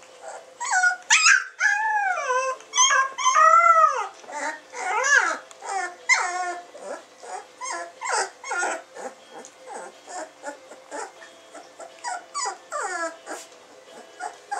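Samoyed puppies whining and yelping: a quick string of high cries that bend up and down in pitch, loudest in the first four seconds, then shorter and quieter.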